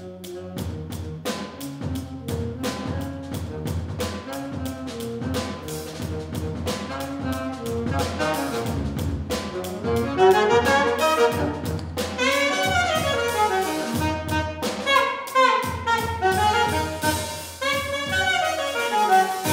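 Alto saxophone played through a DigiTech Whammy pitch-shifting pedal over a steady drum-kit beat, a jazz-funk improvisation. From about ten seconds in, the saxophone notes swoop sharply up and down in pitch.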